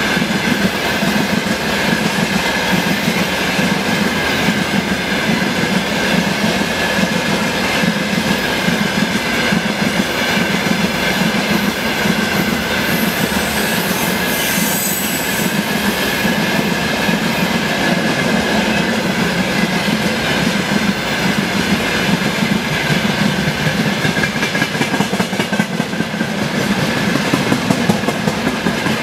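Freight train of rail tank cars passing: steady, loud wheel-on-rail noise with a steady high-pitched ring running through it.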